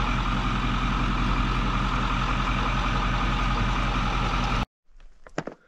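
Detroit Diesel 3-53 three-cylinder two-stroke diesel running steadily at an even idle, cutting off abruptly near the end.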